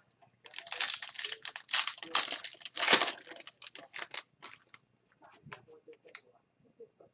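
Wrapper of a 2021-22 Upper Deck Series 2 hockey card pack crinkling and tearing as it is opened, for about four seconds. A few faint ticks follow near the end.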